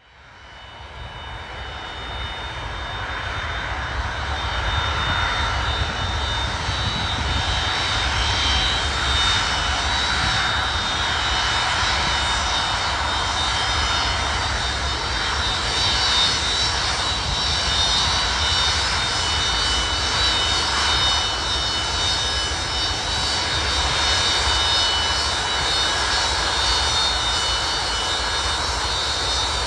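The four Progress D-18T turbofans of an Antonov An-124-100-150 Ruslan running as the freighter taxis slowly: a steady jet rumble with high whining fan tones over it. The sound fades in over the first few seconds, then holds level.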